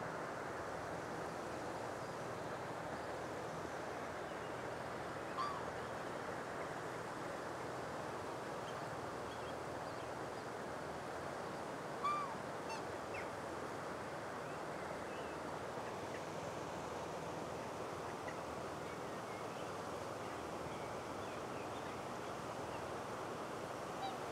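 A black swan giving a few short honks: one about five seconds in, a louder one halfway through, and one near the end. A steady rushing background sounds throughout.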